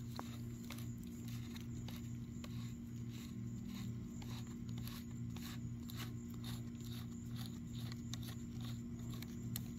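Faint steady mechanical hum with a low throb pulsing about twice a second, and faint ticks in time with it.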